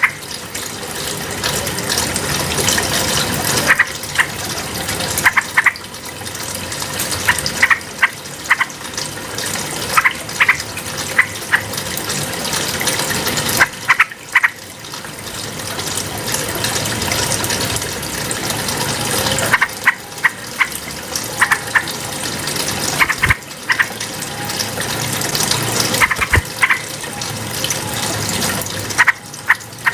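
Yellow-vented bulbul calling: short, loud, bright notes in quick clusters every second or two, over a steady rushing, water-like background.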